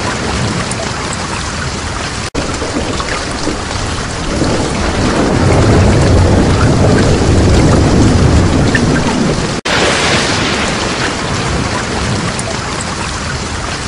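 Steady heavy rain with a long roll of thunder swelling in the middle. The sound cuts out briefly twice, at about two seconds and near ten seconds.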